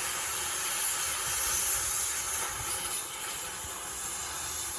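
Steady hiss with an uneven low rumble underneath.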